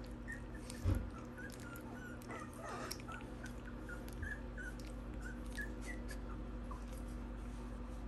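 Three-week-old Pomsky puppies squeaking and whimpering: many short, high squeaks scattered throughout. There is a loud low thump about a second in.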